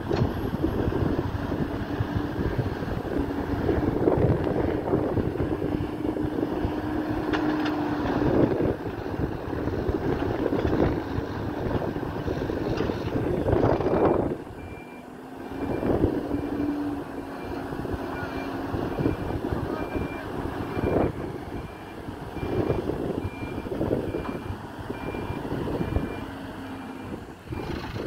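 Hidromek 102B backhoe loader's diesel engine running under load, revving up in repeated surges as it pushes and moves earth. In the second half a reversing alarm beeps at an even pace.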